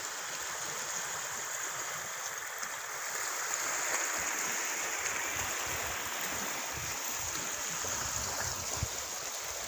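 Small waves washing steadily onto a pebble and coral-rubble shore: an even, steady hiss.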